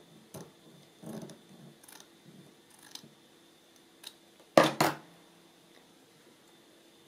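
Scissors cutting lace: a series of small, faint snips and rustles, then two louder sharp snips close together about four and a half seconds in.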